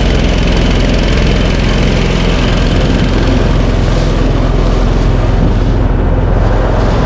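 A small boat's outboard motor running steadily, loud and close, with a steady rushing noise over it.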